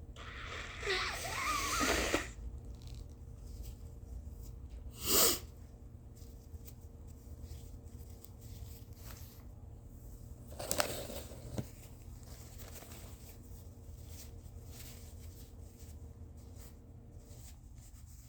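A person blowing her nose in three separate blows: a long one with a wavering honk about a second in, a short sharp blast about five seconds in that is the loudest, and another a little after ten seconds.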